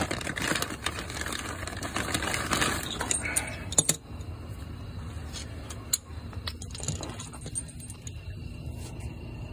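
Loose steel washers and mounting hardware clinking and jingling together in a hand for the first few seconds, then only a few scattered light metal clinks, with a rummage in a toolbox near the end.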